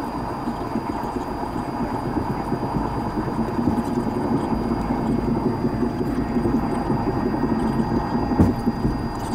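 Airbus A320-family airliner's jet engines running at taxi power, heard inside the cabin: a steady hum and rumble with a thin high whine over it. A single short knock sounds about eight seconds in.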